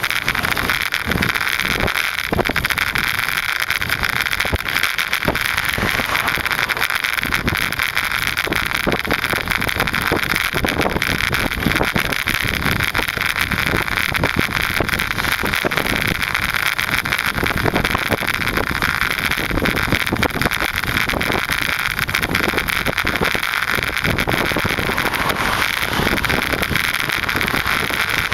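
Wind buffeting the microphone in irregular low gusts over a steady hiss of road noise, as from a camera carried on a moving bicycle.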